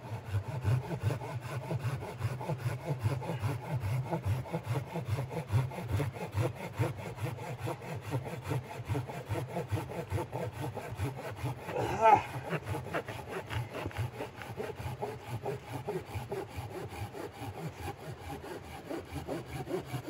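A hand saw cutting through wood in steady, repeated strokes, a few per second. One brief louder squeak comes midway.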